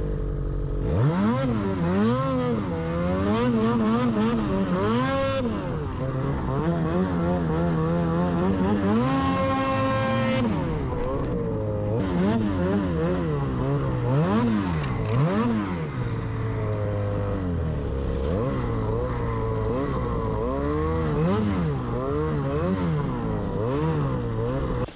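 Snowmobile engine revving up and down over and over as the sled is ridden through deep powder, with one longer high rev about nine to ten seconds in.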